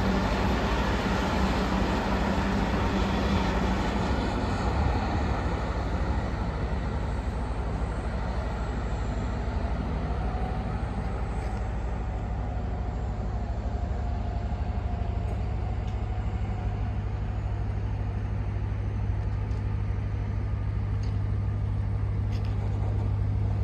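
A heavy diesel engine running steadily, a low, even drone throughout. A higher engine tone fades out in the first few seconds.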